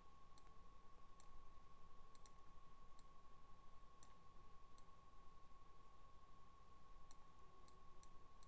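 Near silence with about a dozen faint, scattered computer mouse clicks over a faint steady whine.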